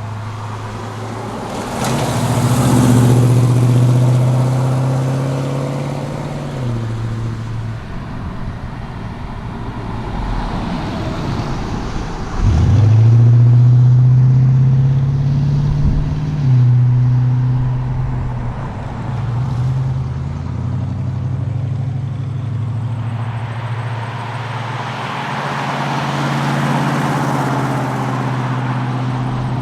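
Ford XB Falcon John Goss Special's V8 engine driving at speed, pulling and changing gear, its pitch dropping at shifts a few times and jumping up sharply about halfway through, with road and wind noise.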